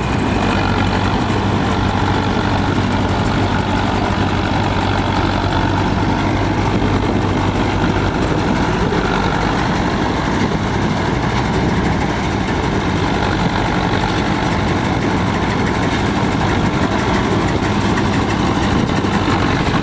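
Yanmar Arjun YH 700 combine harvester's diesel engine running steadily.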